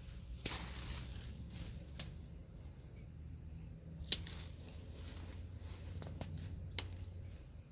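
Hand pruning clippers cutting tree limbs: a handful of sharp snips a second or two apart, the first with a short rustle of branches.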